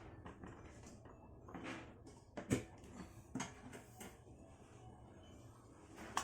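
Faint, scattered knocks and clicks, about four over a few seconds, over quiet room noise.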